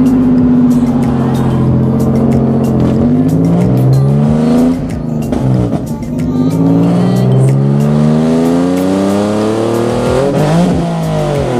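Car engine heard from inside the cabin under hard acceleration. The revs climb, drop at a gear change about five seconds in, climb again, and drop at a second shift near the end.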